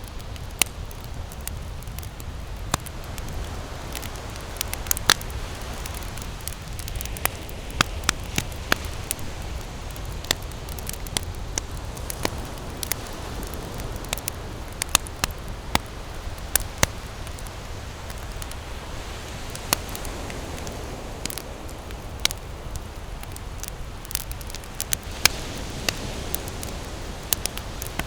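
Wood campfire burning and crackling, with frequent sharp, irregular pops and snaps over a steady low rumble.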